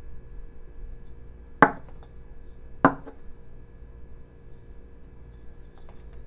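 Two sharp knocks about a second apart during knife-whittling of a small basswood figure, with a few faint ticks near the end.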